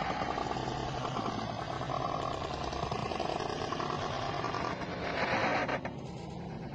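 A person snoring, one long, continuous snore that swells louder and harsher for a moment about five seconds in, then eases.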